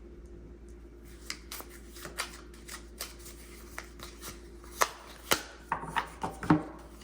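Lenormand cards being handled, drawn from the deck and laid down: a scattering of soft rubs and light clicks, with a few sharper ones in the second half.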